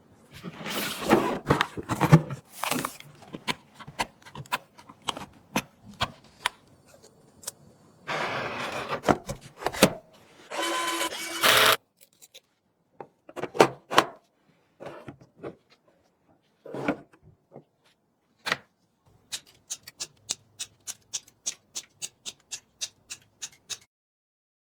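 Computer parts being handled and fitted: a string of sharp clicks, knocks and scrapes, with a couple of longer scraping or whirring stretches midway and a run of evenly spaced clicks, about three a second, near the end.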